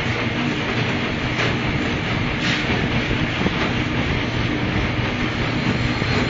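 Packaging machine running steadily: a dense mechanical noise over a low hum, with a brief sharper stroke about once a second in the first few seconds.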